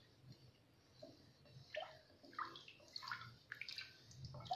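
Wooden spatula stirring milk into a thin gravy in a kadhai: faint sloshing and scraping strokes, a few short ones spread through.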